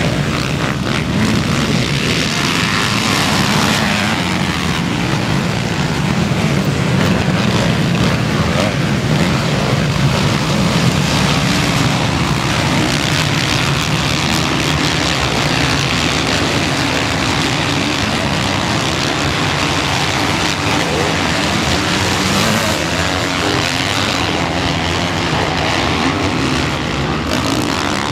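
Several motocross bikes racing, their engines running hard together in one continuous, overlapping drone.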